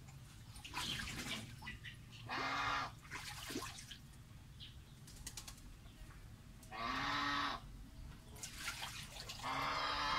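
A laying domestic goose on its nest gives three harsh, drawn-out honks, about two, seven and nine and a half seconds in, with light rustling of dry straw in between.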